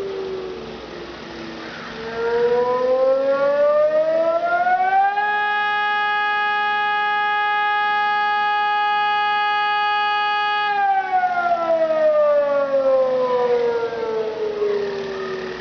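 Civil defence warning siren wailing. The tone dies down, rises again over about three seconds, holds steady for about five seconds, then slowly falls away.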